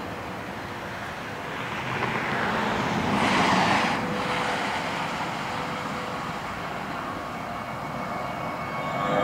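Steady outdoor vehicle rumble with a rushing swell that peaks about three and a half seconds in, then eases.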